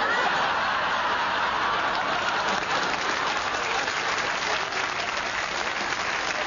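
Studio audience applauding, breaking out suddenly and then holding steady.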